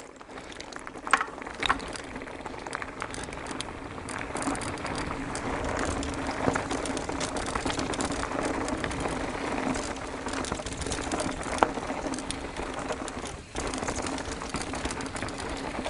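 Mountain bike descending a loose, rocky shale trail: tyres grinding over rubble and the bike rattling, with a steady mechanical buzz like a freewheeling rear hub. Sharp knocks sound about a second in, again shortly after, and near the end, as the bike hits rocks.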